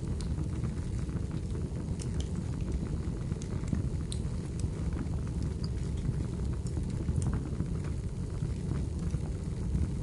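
Wood fire burning in a fireplace: a steady low rumble of flames with scattered sharp crackles and pops from the burning firewood.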